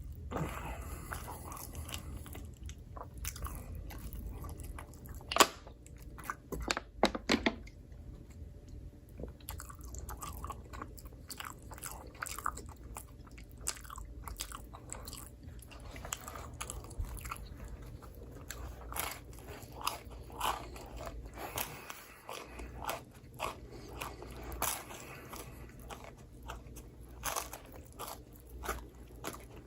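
Close-miked chewing and biting of microwaved pizza: a run of irregular wet chews and crunches, with louder bites about five and seven seconds in.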